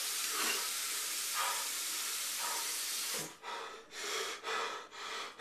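Steady hiss of running water, like a shower, that stops suddenly about three seconds in, followed by short breathy rustles about twice a second.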